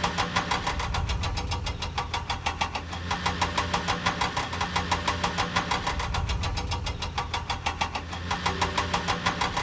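Vehicle engine sound effect running at a steady idle, a rapid even chugging pulse over a low hum.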